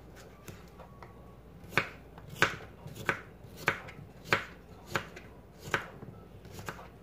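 Kitchen knife slicing a peeled cucumber into thick rounds on a cutting board. Each cut ends in a sharp knock of the blade on the board, about eight cuts a little over half a second apart, starting after a quieter first second or two.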